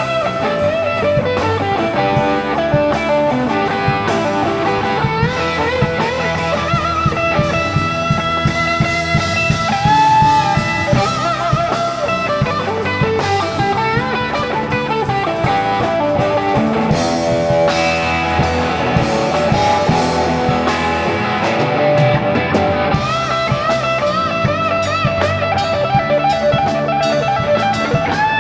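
Live rock band in an instrumental break: an electric guitar plays a lead line with bent notes over a steady drum kit.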